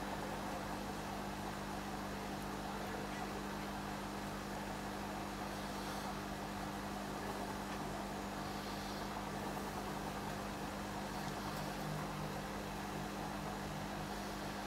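Steady electric hum with an even hiss from running aquarium equipment: air pumps and bubbling aeration in the tanks.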